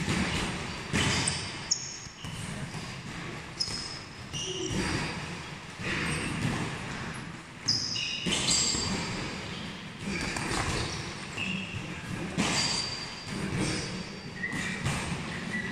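Boxing sparring: scattered punches landing on gloves and headgear, with short high squeaks of shoes on the ring floor as the boxers move.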